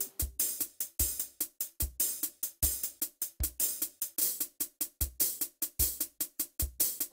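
Background music that is a drum beat on its own, with no melody: a low kick drum lands about every three-quarters of a second, with quicker hi-hat and snare strokes between.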